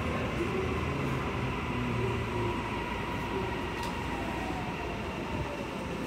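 Tokyu 5080 series commuter train heard from inside the car as it brakes into a station: a steady rumble of wheels on rail, with the electric motor whine falling slowly in pitch as the train slows.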